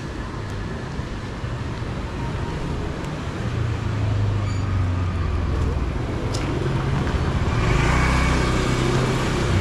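Street traffic going past, engines running steadily, growing louder about four seconds in and again near the end.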